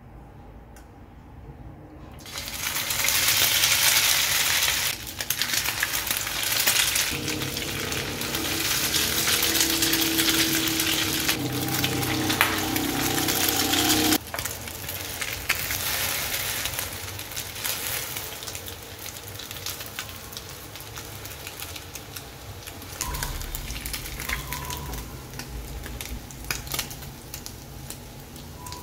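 Bread rolls wrapped around sausages, coated in egg, sizzling in hot oil in a frying pan. The sizzle starts loudly about two seconds in and carries on, easing somewhat in the second half.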